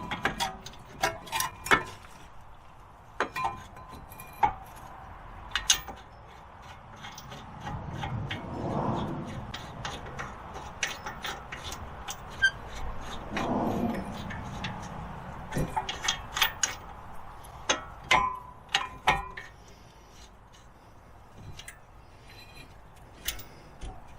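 Hand tools and metal car parts being handled: scattered clinks and knocks in short clusters, with two longer rustling sounds a third of the way and halfway through.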